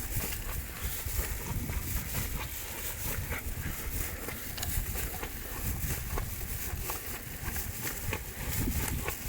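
Wind gusting across the microphone in a snowstorm: an uneven low rumble under a steady hiss, with many light scattered ticks.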